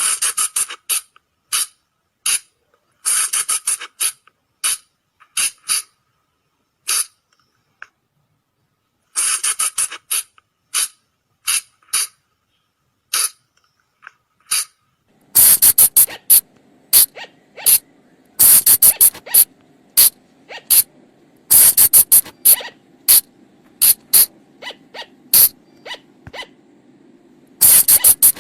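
Sunda flying lemur (colugo) calls on a lure-call recording: short, sharp, high-pitched squeaks, some single and some in fast rapid-fire clusters, at irregular intervals. About halfway in, a low steady hum starts underneath and the calls become louder and denser.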